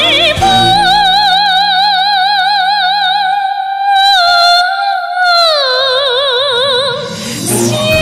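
Woman singing a Yanbian Korean song into a microphone over a PA, holding one long note with wide vibrato while the accompaniment beneath drops out about three and a half seconds in. Her voice then slides down to a lower note, breaks off briefly, and starts a new held note near the end.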